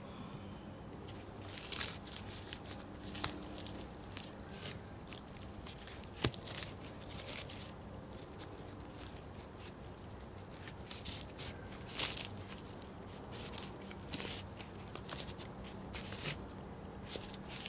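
Wooden poles being handled and set onto a pole frame: scattered knocks and scrapes of wood on wood with rustling of the forest-floor litter, the sharpest knock about six seconds in.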